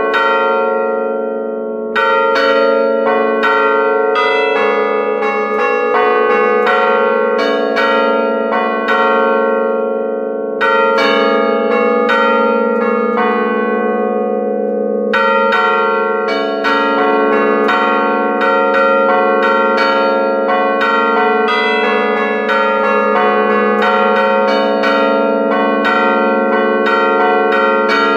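Five church bells hung dead in the belfry, struck by their clappers from a hand-played keyboard (tastiera) in a quick melodic pattern, heard close and loud from inside the bell chamber. There are a few short pauses between phrases, during which the lower bells keep humming.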